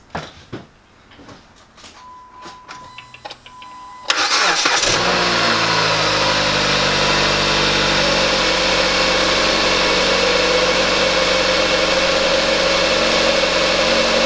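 A few faint clicks and a short steady tone, then about four seconds in the Jeep Compass engine cranks, catches at once and settles into a steady idle. This is its first start on a freshly fitted replacement throttle body, on a battery boosted by a jump pack, and it runs smoothly enough that the owner calls it a success.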